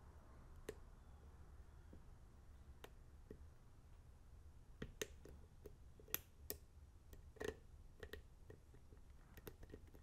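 A dozen or so faint, scattered clicks of a steel hook pick and tension wrench working the pins inside a pin-tumbler lock cylinder during single-pin picking, most of them in the middle of the stretch.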